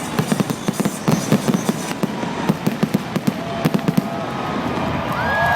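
Aerial fireworks going off in a rapid barrage of bangs and crackles, thinning out after about four seconds. Near the end, crowd voices start to rise in cheers.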